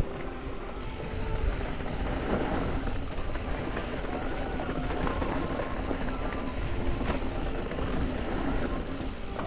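Yeti SB165 full-suspension mountain bike rolling fast down a rocky dirt trail: tyres crunching over gravel with a steady rumble, and the bike rattling, with a few sharp clacks as it hits rocks.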